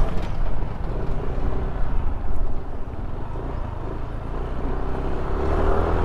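Motorcycle engine running on the move under steady wind and road noise. The engine note rises toward the end as the bike speeds up.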